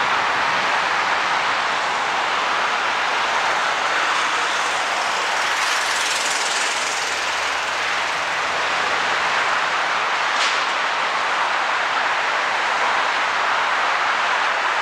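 Twin turbofan engines of a Cessna 680A Citation Latitude business jet, a steady rushing jet noise at an even level. A brief higher hiss comes about six seconds in, and a short sharp tick about ten seconds in.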